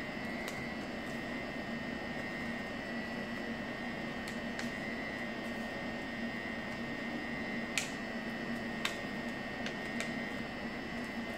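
Steady room hum with a faint high whine, like a fan or air conditioner running. A few faint ticks come over it as paper is folded and pressed flat on a table.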